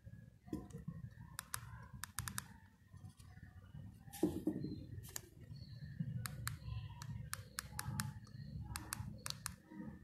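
Keypad buttons of a Nokia 1280 mobile phone being pressed: clusters of short clicks, with a louder knock about four seconds in as the phone is handled.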